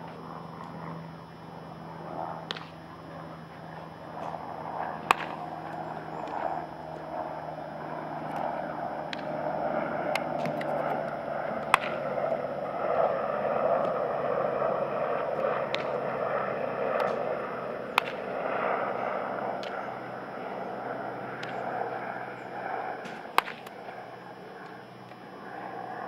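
Sharp cracks every few seconds of baseballs being struck by a bat and snapping into leather gloves during an infield groundball drill, over steady background noise that swells in the middle.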